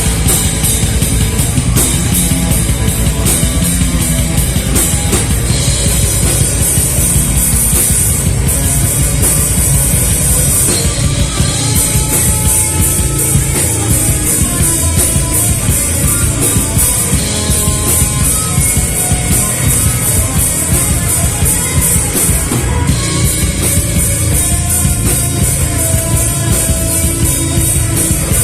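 Live heavy metal band playing loud, with drums and cymbals driving the song. The high cymbal wash drops out briefly a few times, around 11, 17 and 23 seconds in.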